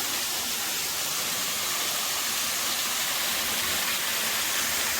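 Waterfall rushing steadily: an even, high hiss of falling water that doesn't change.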